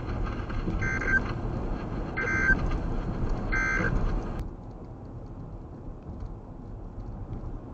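Weather radio giving three short two-tone data bursts about a second and a half apart: the SAME end-of-message code that closes a NOAA Weather Radio warning. The broadcast cuts off abruptly after the third burst, leaving steady vehicle road noise.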